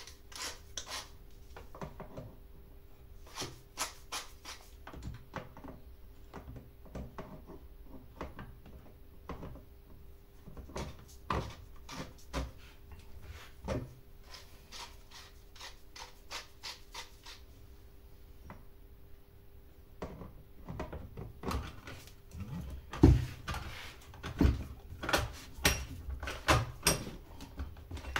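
Irregular clicks, scrapes and taps of metal and plastic parts being handled while the guide bar and chain are fitted to a Scheppach CSP41 chainsaw, with a run of louder knocks in the last several seconds.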